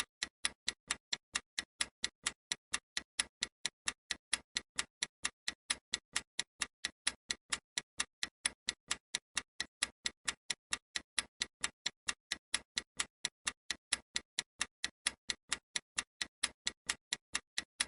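Analog clock ticking: a steady run of sharp, evenly spaced ticks, several a second, with silence between them.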